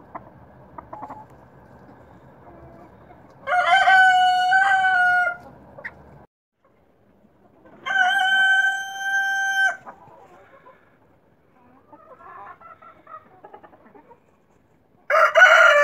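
Zagorsk Salmon rooster crowing: two full crows a few seconds apart, with a third beginning near the end, and faint hen clucking in between.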